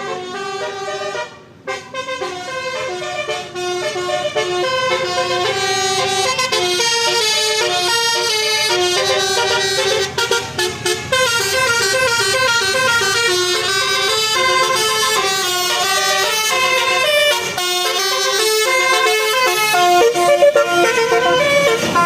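Telolet basuri bus horn playing a tune of quick stepping notes, with short breaks about a second in, around ten seconds in and near seventeen seconds.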